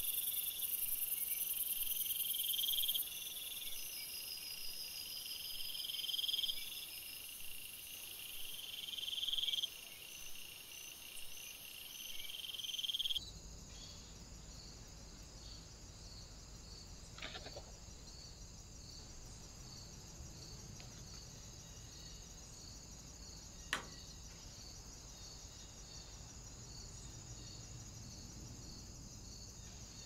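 Crickets chirping: high trills about a second long, repeating every two to three seconds over a steady high buzz. About halfway through, this changes abruptly to a quieter steady high insect hum over a low rumble, with one sharp click later on.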